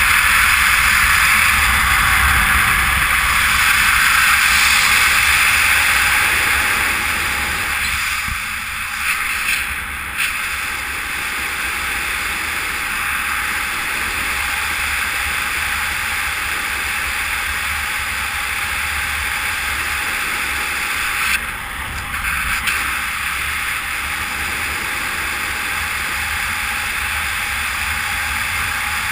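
Steady rush of airflow over the camera microphone while flying fast under a speed wing. The level briefly dips and jumps about a third of the way through and again about three-quarters of the way through.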